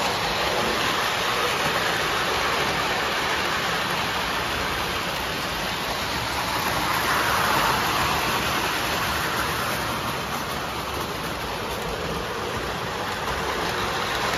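Old O scale model trains running on the layout's track: a steady rumble of wheels and motors that swells about halfway through as a train passes close.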